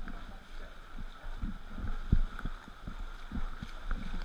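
Sea water sloshing and slapping against a bodyboard at the waterline as it moves through choppy water, in irregular low thumps, the heaviest about two seconds in.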